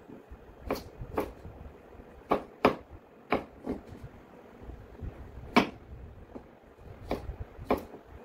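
Chef's knife chopping broccoli on a wooden cutting board: separate blade-on-board knocks at an uneven pace, about nine of them, some sharper and louder than others.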